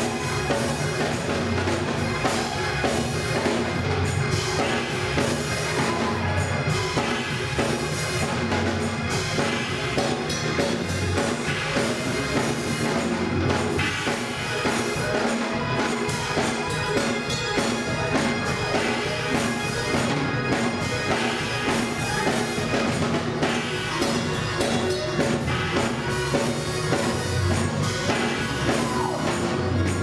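Live gospel music from a Yamaha Motif keyboard and a drum kit, playing an upbeat groove with a steady driving beat.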